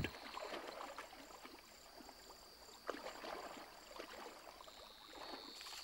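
Lions wading through shallow floodwater, with faint sloshing and splashing and one slightly louder splash about three seconds in.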